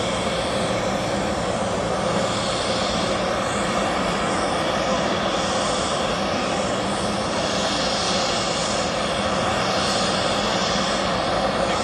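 Aircraft engine running steadily: a loud, unchanging drone with a few held tones over a dense rush of noise.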